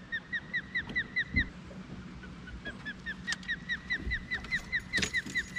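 A bird calling a rapid series of short, repeated whistled notes, about six or seven a second, in two runs with a pause of about a second between them.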